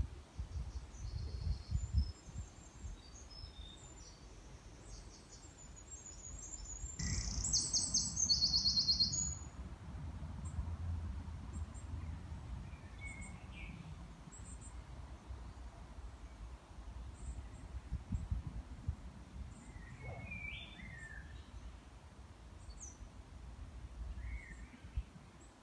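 Forest birds calling with scattered short high chirps, and one loud, rapid run of high notes about seven to nine seconds in. A steady low rumble underlies them throughout.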